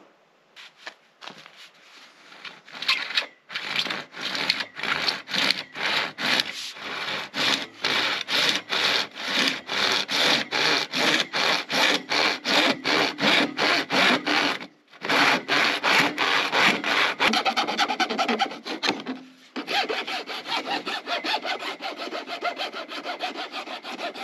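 Fine-tooth handsaw cutting through old PVC drain pipe in regular back-and-forth strokes, starting with a few slow strokes and with a short break partway through. In the last few seconds the strokes change to a finer, quicker scraping: a metal file chamfering the cut pipe edge.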